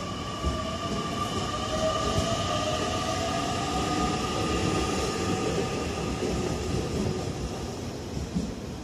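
JR Kyushu 813 series electric train pulling out and gathering speed. The traction motors whine in steady tones, one of them rising in pitch over the first few seconds, over the rumble of the wheels on the rails as the cars pass. The sound eases off near the end as the last car moves away.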